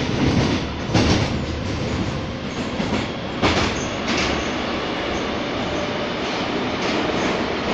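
Rusich metro train running at speed, heard from inside the car: a steady loud rumble and rushing noise, with a few sharp clacks in the first half.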